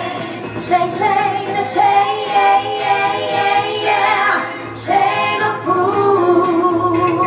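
A group of women singing a song live into microphones: a lead voice with backing singers.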